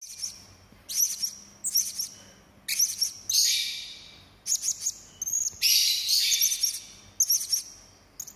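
Serindit (Loriculus hanging parrot) calling sharp and harsh: high shrill notes in short bursts about once a second, with two longer rasping stretches in the middle.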